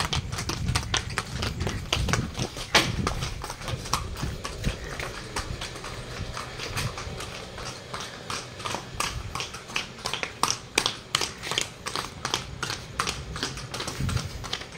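Hooves of a buffalo bull clopping on a hard village lane as it is walked, a steady run of clops about three a second.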